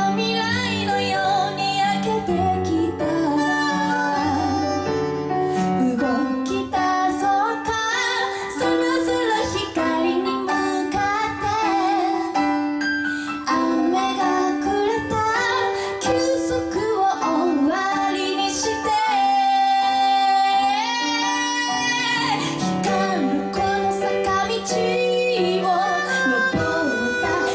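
A live band plays a song, with a wavering lead melody over a stepping bass line.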